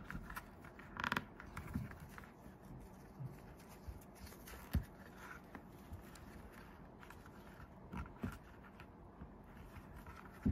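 Faint rustling and scratching of t-shirt yarn being handled and tied in a knot, with a few short soft knocks, one about halfway through and two near the end.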